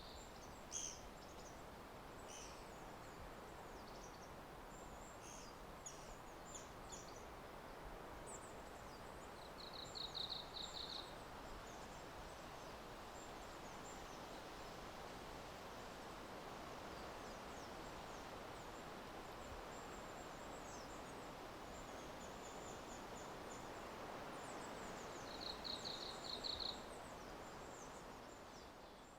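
Forest ambience: a steady soft rush of natural background noise, with a bird's short, rapid pulsed call twice, about 10 and 26 seconds in, and faint scattered high chirps of small birds or insects. The whole fades out at the end.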